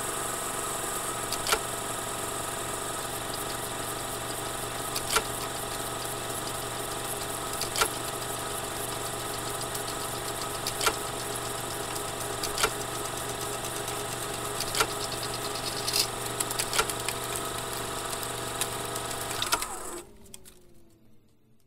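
A steady mechanical motor hum with a low hum and scattered sharp clicks every second or two. Near the end it cuts down suddenly and winds down, its pitch falling as it fades out.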